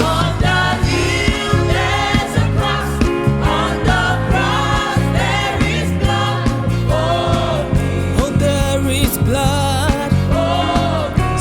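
Youth choir singing a gospel song with vibrato-rich voices over a band with steady bass and drums.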